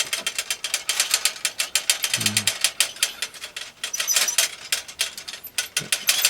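Fast, uneven clicking and rattling, performed as foley for the rattle of an old ontel (Dutch-style roadster) bicycle as it rides along.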